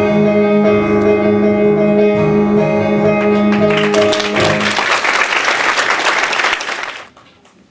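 Stage-musical accompaniment ends on a long held chord while audience applause swells in over it about three and a half seconds in. The applause cuts off abruptly near the end.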